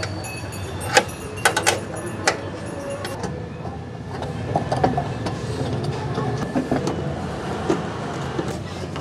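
Hand tools clicking and knocking on a car's front bumper fasteners as the bumper is tightened back on with a socket wrench and a screwdriver: a scatter of sharp clicks, thickest in the first few seconds, over a steady low rumble.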